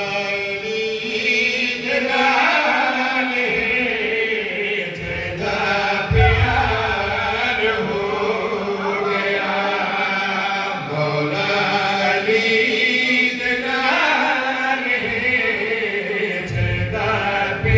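A man's voice chanting a devotional qasida in long, held melodic phrases, in the sung style of a zakir's recitation at a majlis.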